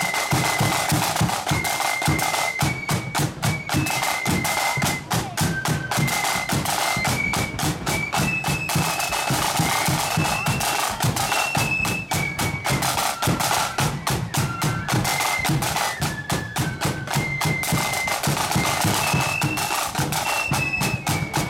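Marching flute band playing a tune: the flutes play the melody in unison over steady snare drum rolls and strokes, with a bass drum keeping the beat.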